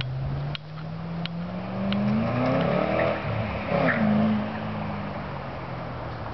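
2006 Ford Mustang GT's 4.6-litre V8 through Pypes Violator mufflers and an X-pipe, accelerating away. The exhaust note climbs in pitch for a couple of seconds, drops at a gear change about four seconds in, then fades as the car pulls into the distance.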